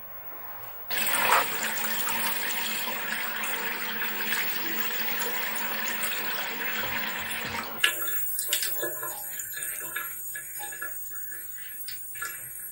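Running water: a steady pour that starts about a second in. About eight seconds in it turns quieter, with irregular small splashes and drips.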